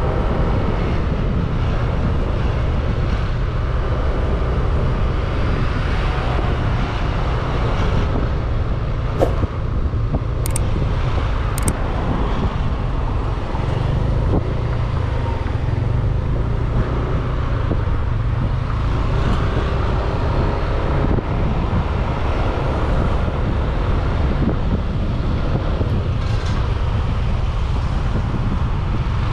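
Motor scooter riding through traffic: a steady low rumble of engine, tyres and road noise, with three short sharp clicks about ten seconds in.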